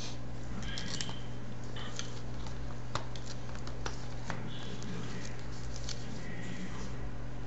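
Room tone: a steady low hum with scattered light clicks and brief soft rustles.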